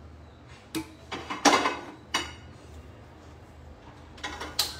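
Short metal clicks and clatters of kitchen utensils (tongs and a tawa) being handled at a gas stove. There are a few separate knocks, the loudest about one and a half seconds in, and another quick cluster near the end.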